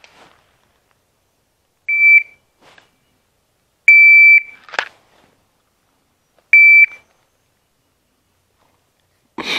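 Electronic shot timer giving three short, high single-pitch beeps a couple of seconds apart as its buttons are pressed, with a small click after the second beep. A short burst of noise comes near the end.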